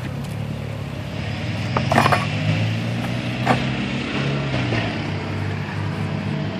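Wooden bee package being lifted and handled, with a cluster of knocks and clinks about two seconds in and another knock a little later, over a steady low hum.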